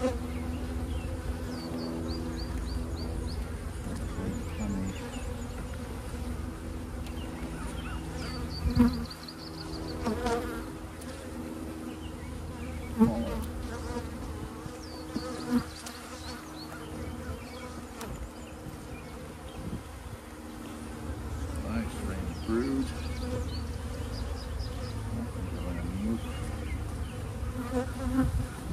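Honeybees buzzing in a steady hum over an open, working hive, broken by a few sharp knocks, the loudest about a third and halfway through.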